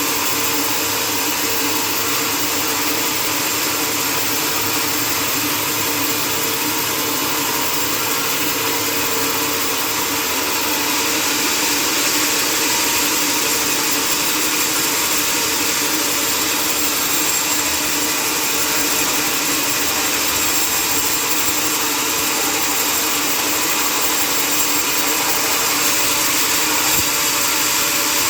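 Sawmill machinery running steadily: a constant mechanical noise with a few held tones under it, the higher part growing a little louder about ten seconds in.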